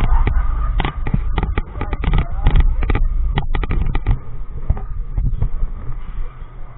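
Roller coaster train rolling into the station over the track with a low rumble, and a rapid irregular run of sharp clacks and knocks for about three seconds before the rumble carries on alone.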